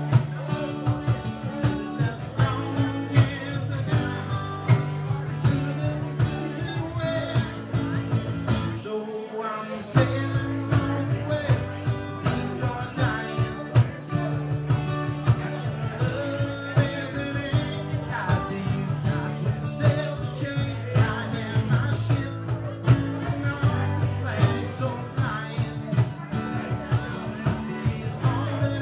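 A three-piece band playing blues-rock with electric guitar, bass and drums, with a steady beat. About nine seconds in, the bass and drums drop out for roughly a second before the band comes back in.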